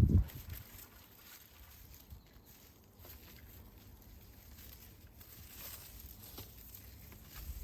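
A brief low thump near the start, then faint rustling and small knocks as garlic bulbs are pulled and handled in dry soil.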